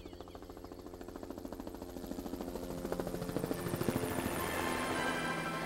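Helicopter approaching, its rotor chop growing steadily louder. Music comes in under it during the second half.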